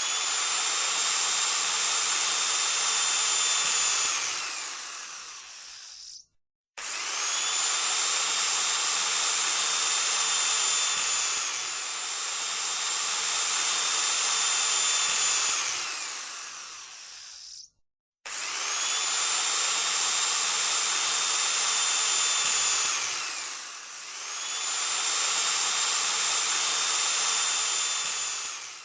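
Power drill running in long bursts, each holding a steady high whine and then slowing down with a falling pitch. It stops completely twice and eases off and speeds up again twice in between.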